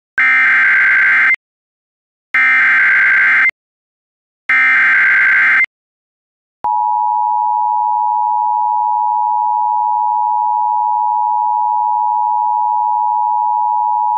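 Emergency Alert System alert opening with three one-second bursts of warbling SAME header data, encoding a severe thunderstorm warning. From about six and a half seconds in comes the steady EAS two-tone attention signal.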